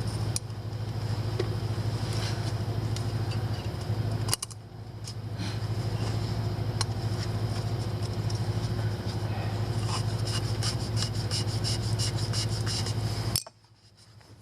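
A steady low mechanical hum with scattered scrapes and clicks from hand work, and a quick run of clicks about ten seconds in. The sound drops away abruptly twice and fades back in.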